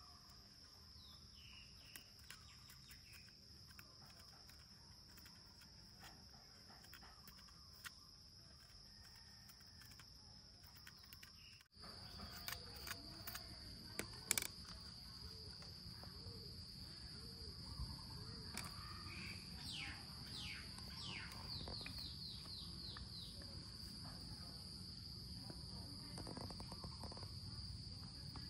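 Insects chirring outdoors: a steady, high, shrill drone, with scattered faint clicks and a short run of quick chirps about two-thirds of the way through. The background cuts out for an instant about twelve seconds in and comes back a little louder.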